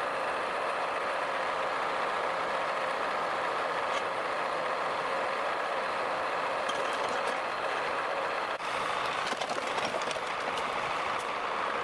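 Heavy logging machine running steadily, with a few knocks and clanks about nine to eleven seconds in.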